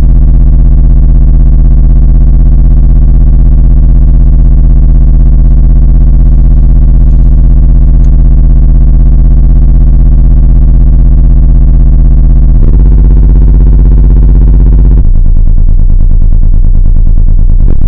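Pair of 18-inch Triple X subwoofers in a 10,000-watt car audio system playing a 16 Hz subsonic test tone, a steady buzz that overloads the camera's recording. It changes character twice near the end.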